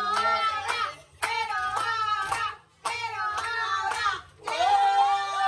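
High-pitched singing in short phrases with short breaks between them, ending on a long held note, while hands clap along.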